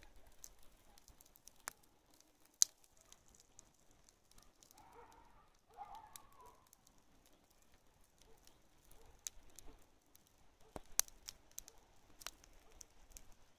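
Untreated hay burning and crackling faintly, with scattered sharp pops and snaps, the loudest about two and a half seconds in and again about eleven seconds in.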